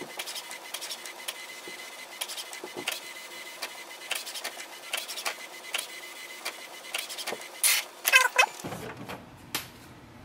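HP OfficeJet Pro 9130e inkjet printer printing its printhead alignment page: the carriage mechanism runs with a steady high whine and rapid clicking, with a few louder mechanical sounds near the end.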